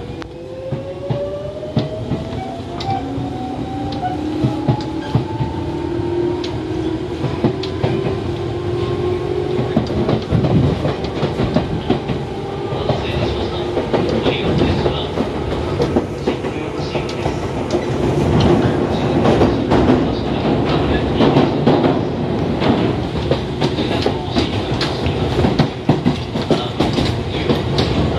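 Toyohashi Railway 1800 series electric train accelerating, heard from the gangway between cars: a motor whine rises in pitch over the first ten seconds, then gives way to loud running noise with the clickety-clack of wheels over rail joints, growing louder in the second half.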